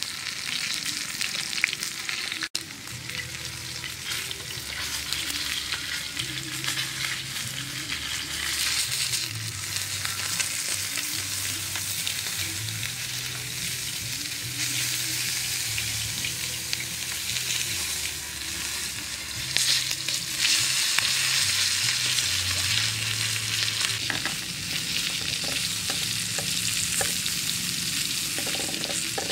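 Whole chicken sizzling steadily on a hot metal tray over a wood fire, the fat spitting and crackling as it roasts.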